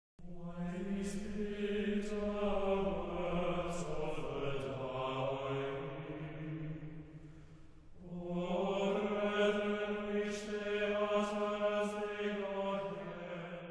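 Slow vocal chant sung in two long phrases, with a brief pause about eight seconds in. A low note holds steady beneath each phrase.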